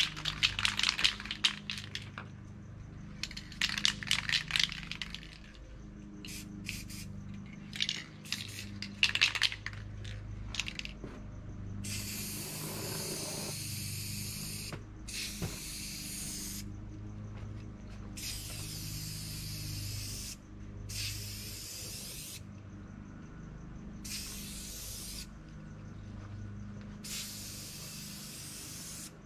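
An aerosol spray-paint can being shaken, its mixing ball rattling in quick clusters of clicks for the first ten seconds or so. Then it sprays in about six separate hissing passes of one to three seconds each, over a steady low hum.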